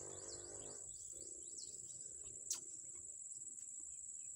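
Steady high-pitched drone of forest insects, with short falling chirps repeating several times a second in the first second or two and a single sharp click about two and a half seconds in.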